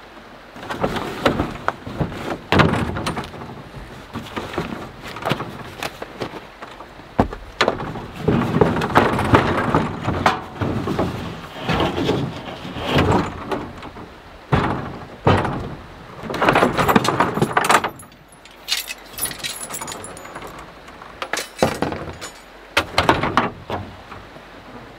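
Camping gear being pulled out and moved about in a van's rooftop cargo box: irregular knocks, clatter and rustling, starting and stopping throughout.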